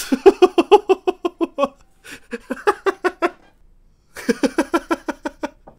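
A man laughing in three bouts of rapid ha-ha pulses, with short pauses between them.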